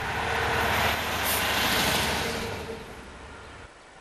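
Class 66 diesel-electric locomotive, with its two-stroke V12 EMD engine, running light engine past at speed: a steady engine drone over wheel-on-rail rumble that swells as it passes, loudest about one to two seconds in. It fades towards the end and then cuts off suddenly.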